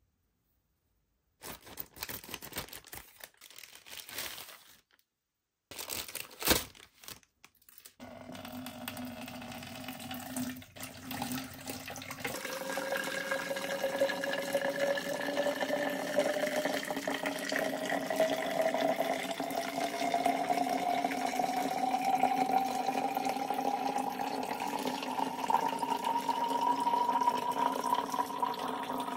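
Plastic packaging crinkling, with one sharp click, then from about eight seconds in, water running into a container, its tone rising steadily as the container fills.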